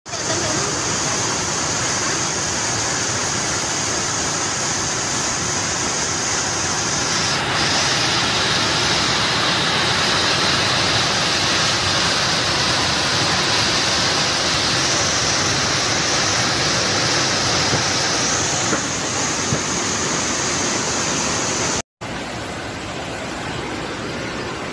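Floodwater rushing through a street in a fast torrent: a steady, loud rush of water. It breaks off for an instant about 22 seconds in and goes on more quietly after that.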